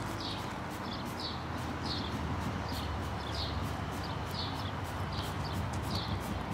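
Hand trigger spray bottle of insect remover pumped over and over onto a car's front, a short hissing squirt about every two thirds of a second, over a low steady hum.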